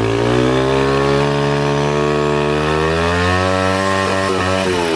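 Turbocharged Loncin pitbike's single-cylinder four-stroke engine running at high revs. It holds a steady pitch, climbs a little past halfway, then drops away near the end.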